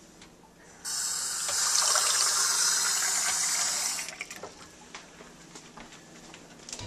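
Kitchen faucet running into the sink: a steady rush of water starts about a second in and is shut off about three seconds later. A few faint knocks follow.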